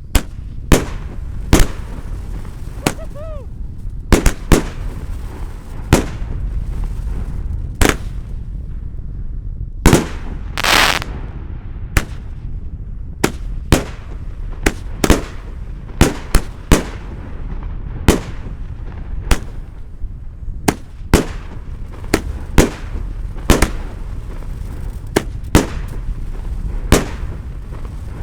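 A Red Lantern Flash Willow 26-shot 500 g firework cake firing: a steady series of sharp bangs from shots launching and breaking, roughly one a second, with a longer hissing burst about a third of the way through.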